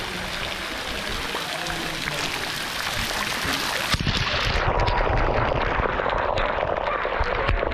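Thin streams of water falling from the cenote's rim and splashing onto the pool, a steady hiss. About four seconds in the sound turns muffled and deeper, with splashing, as the falling water pours over the microphone and a swimmer moves under it.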